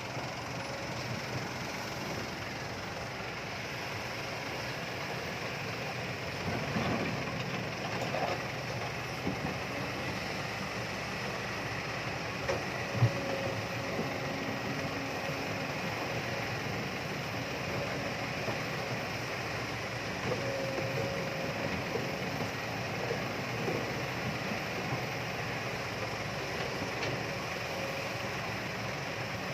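Kobelco excavator running, a steady drone of diesel engine and machinery, with one sharp knock about thirteen seconds in.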